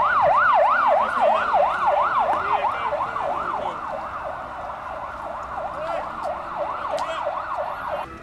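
Emergency vehicle siren on a fast yelp, sweeping up and down about three times a second. It starts suddenly, slowly fades, and cuts off just before the end.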